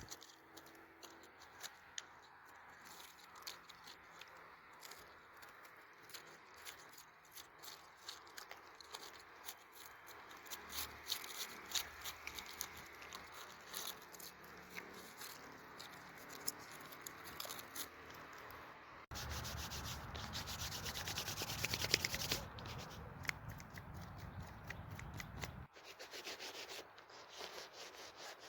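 Close-up rubbing and fine crackling over a steady hiss. A louder, denser stretch of it begins sharply about two-thirds of the way through and cuts off a few seconds later.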